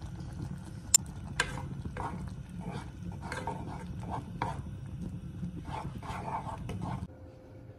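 Two sharp taps of a metal spoon on a saucepan about a second in, then a plastic spatula stirring and scraping instant noodles in the pot in short repeated strokes over a steady low rumble. The sound drops away shortly before the end.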